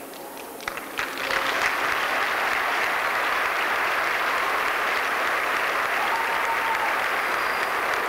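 A large crowd applauding. It begins with a few scattered claps and swells into full, steady applause about a second in.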